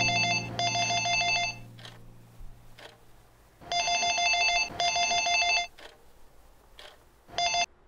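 Desk telephone ringing with a rapidly pulsing electronic ring in double rings: two rings, a pause of about two seconds, two more rings, then a short last ring cut off near the end.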